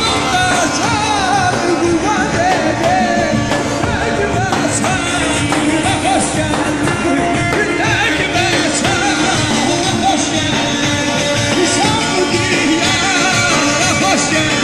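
Live band music: a singer with a large hand-carried drum beating and an upright double bass playing.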